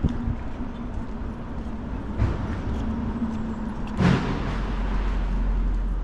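City road traffic with a steady low hum and rumble, and a sharp thump about four seconds in.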